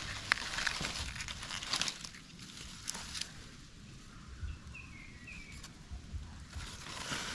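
Rustling and crinkling handling noises with sharp clicks and snaps, in bouts. A bird calls with short falling chirps about five seconds in.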